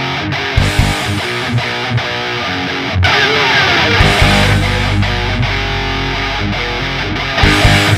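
Hard rock theme song with distorted electric guitar over a steady beat, with a low held note in the middle.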